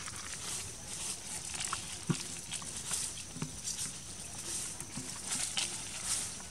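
Baby monkeys scrabbling and climbing on a tree trunk among leafy twigs, with scattered short rustles and taps over a pulsing high hiss.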